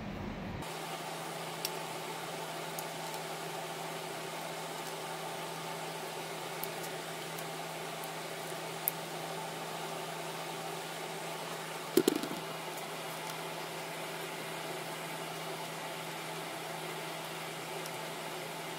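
Steady mechanical hum, with a few faint clicks and a short double knock about twelve seconds in, as spark plug wires are routed and pressed into their plastic channels on the engine.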